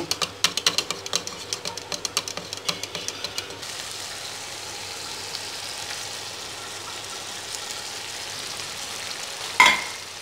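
A whisk beating yogurt in a bowl, rapid clicks against the side, for about three and a half seconds; then minced-meat and tomato gravy sizzling steadily in a frying pan, with one sharp clack near the end.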